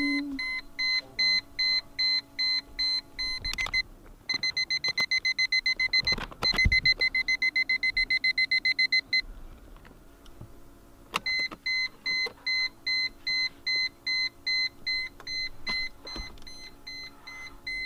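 Mercedes-Benz W210 E-Class dashboard warning chime beeping over and over at a high pitch with the ignition on and the coolant level warning lit. The beeps come about twice a second, speed up to about three or four a second for several seconds in the middle, and stop for a couple of seconds before resuming. There is a single knock about six and a half seconds in.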